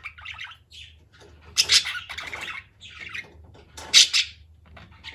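Pet budgerigars chattering and squawking, with two loud, harsh squawks, one about one and a half seconds in and another near four seconds.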